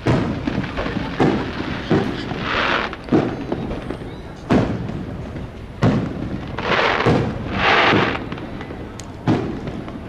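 Aerial fireworks bursting: about seven sharp booms spaced a second or so apart, echoing, with two longer hissing stretches between them.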